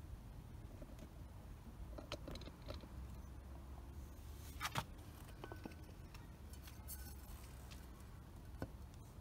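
Faint low background rumble with a few light clicks and taps scattered through it, the loudest about halfway through.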